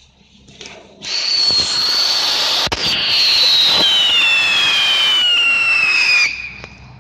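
Firework rocket motors on a toy rocket car burning with a loud hiss and a whistle that slowly falls in pitch, starting about a second in and cutting off sharply near the end, with a sharp pop partway through. The burn is a motor malfunction that wrecks the car.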